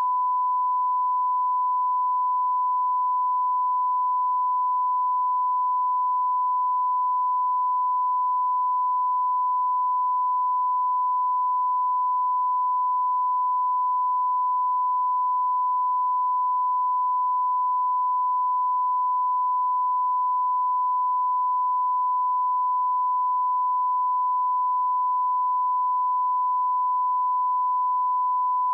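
1 kHz line-up test tone at −20 dBFS, the reference tone of a bars-and-tone leader: one steady, unbroken beep.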